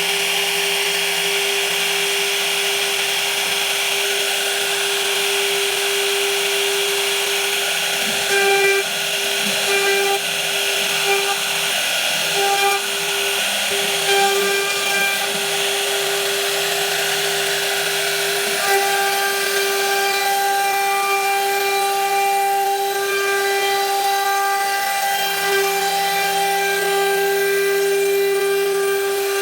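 High-speed router spindle running steadily as it cuts wood, a constant whine with a hiss of cutting, its pitch and overtones shifting slightly as the bit bites into the wood.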